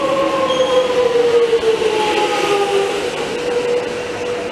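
Electric suburban metro train passing alongside the platform, its traction motors whining with a pitch that falls gradually as the train slows, then levels off, over the rumble of the wheels on the rails.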